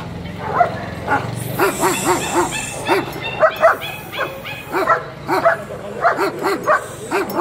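Shepherd dogs barking at each other: short, sharp barks, about two or three a second, often in quick runs of three or four.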